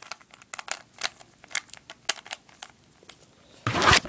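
3x3 Rubik's cube being twisted through an algorithm: an irregular run of plastic clicks and rattles as the layers turn, then a short, louder rush of noise near the end.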